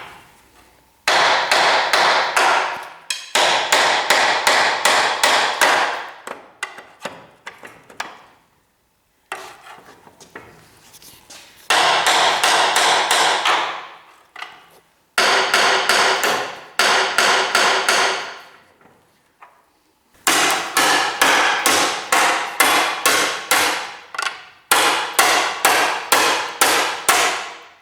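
Hammer blows on metal, struck rapidly about four to five times a second in runs of a few seconds with short pauses, knocking rusted-on front suspension shims and parts loose that grease has not freed.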